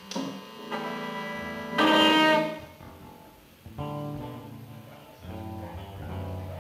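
Amplified band instruments sounding two long held notes, the second one loud, then an electric guitar picking short phrases of single notes.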